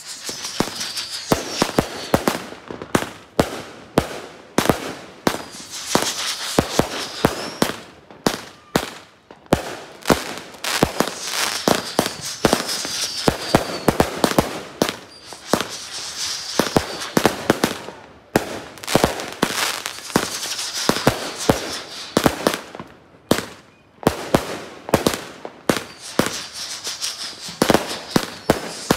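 Aerial fireworks going off over and over: many sharp bangs in quick succession as shells launch and burst, with crackling and hissing between the bangs.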